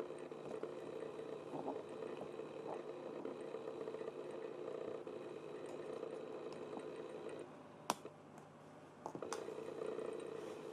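A small motor runs with a steady whir, stops about seven seconds in, and then starts again; a single sharp click falls in the gap.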